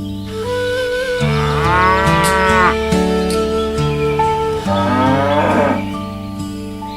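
Cattle mooing twice, about a second and a half in and again near the five-second mark, each call arching up and down in pitch, over steady background music.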